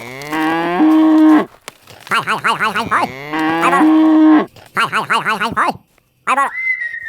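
Cow mooing twice in long calls that rise in pitch and then hold, with shorter wavering calls between and after them. A brief high whistle near the end.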